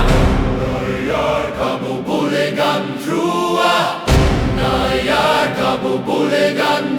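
Music: a chanting choir of voices in short sung phrases over a low sustained drone, in a dark ritualistic style.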